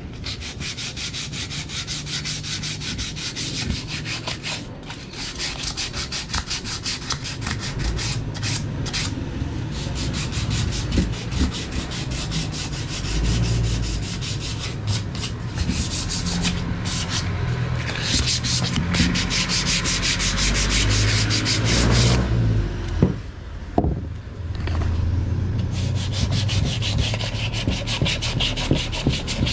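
Wood being sanded by hand with sandpaper, rapid back-and-forth scraping strokes. The strokes break briefly with a couple of knocks about three-quarters of the way through, then carry on.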